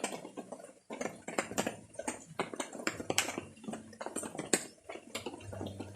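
Banana leaves rustling and crackling in quick, irregular clicks as a goat feeds on them.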